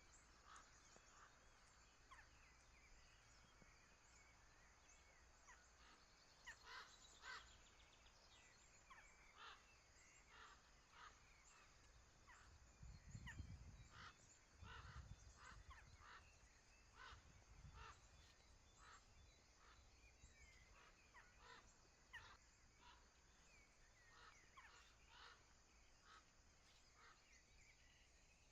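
Faint outdoor ambience with many short bird calls and chirps scattered throughout. A low rumble swells and fades about halfway through.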